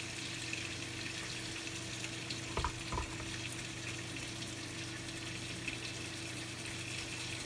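Cassava flour being worked through a metal mesh sieve, a soft steady hiss, over a low steady hum. Two light knocks come about two and a half and three seconds in, typical of the sieve tapping against the dish.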